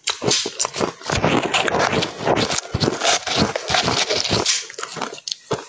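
Close-up chewing of a mouthful of powdery ice coated in matcha powder: dense, continuous crunching for about four and a half seconds, then slower separate crunches.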